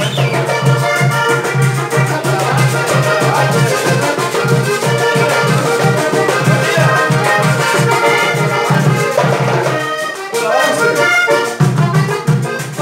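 Live merengue instrumental break: an accordion plays the melody over strummed guitar and a steady low beat. The low beat drops out briefly about ten seconds in, then comes back.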